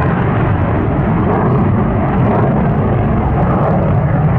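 Boeing F/A-18 Super Hornet's twin General Electric F414 turbofan engines in flight: loud, steady jet noise, heaviest in the deep low end.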